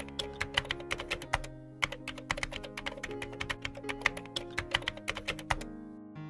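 Typing sound effect: rapid keyboard-like clicks, several a second, pausing briefly about one and a half seconds in and stopping shortly before the end, set over soft background music.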